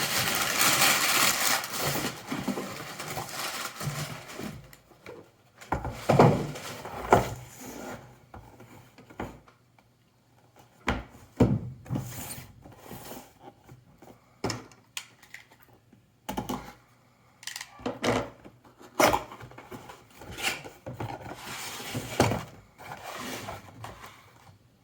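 Unboxing a patch panel: packaging rustles and scrapes for about the first two seconds, then scattered knocks and rubbing as the panel and its packing are handled.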